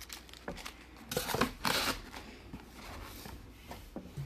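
Packaging being handled: irregular rustling with small knocks, loudest for about a second starting about a second in.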